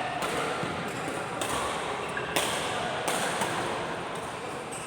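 A rally of sharp racket hits, roughly one a second, five in all.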